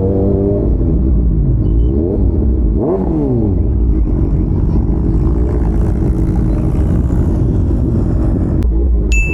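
Superbike engines revving, their pitch rising and falling a few times in the first three or four seconds, then running steadily. A high steady tone comes in near the end.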